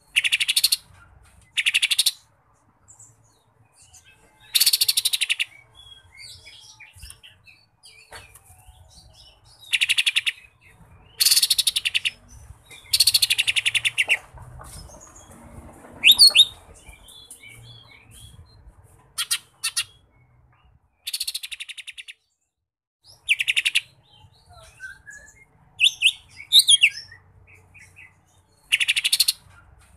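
Lesser green leafbird (cucak ijo mini) singing: about a dozen short, loud, rapid buzzy trills a couple of seconds apart, with thin whistled notes between them. The song is filled with mimicked kapas tembak (bulbul) phrases.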